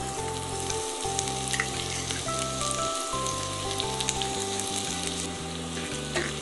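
Chopped garlic sizzling in hot oil in a steel wok, a dense hiss with scattered pops, over background music.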